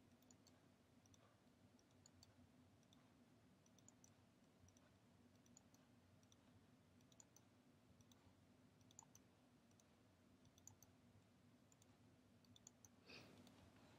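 Near silence broken by faint, scattered computer mouse clicks, a few every second or two, as menu items are clicked. A brief soft rush of noise comes near the end.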